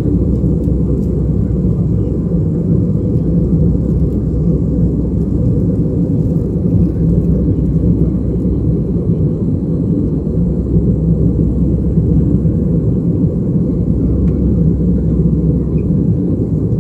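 Steady in-flight cabin noise of an Airbus A320-214: an even low rumble of airflow and its CFM56 turbofan engines, heard from inside the passenger cabin.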